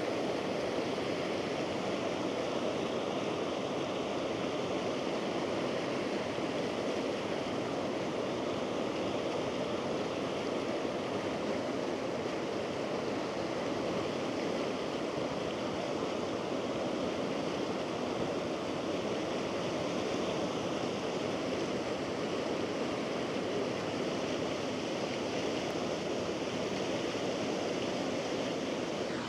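Floodwater flowing with a steady, even rush.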